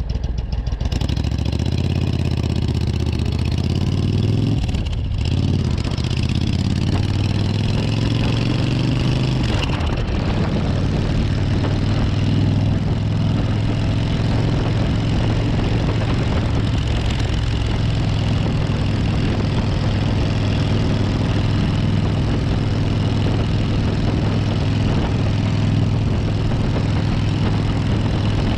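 Suzuki Intruder 1400's V-twin engine pulling through the gears. The revs climb, drop at a shift about five seconds in, climb again, then settle into a steady cruise about ten seconds in.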